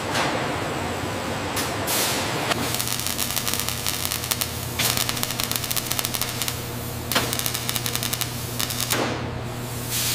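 Factory machinery noise with a steady low hum. From about two and a half seconds in, the dense, fast crackle of robotic spot welding throwing sparks takes over, with a few louder snaps.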